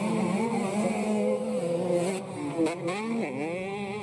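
85cc-class motocross bikes racing under throttle, their engines revving and changing pitch, with a sharp drop and rise in pitch about three seconds in as a rider comes off and back onto the throttle.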